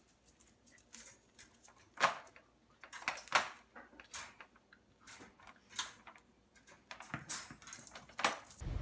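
Irregular metallic jingling and clinking: a dog's collar tags rattling as the dog moves.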